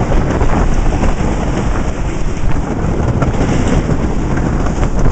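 Roller coaster ride: wind buffeting the microphone over the rumble and rattle of the train running along a wooden-framed track, a loud, steady rush that flickers in level.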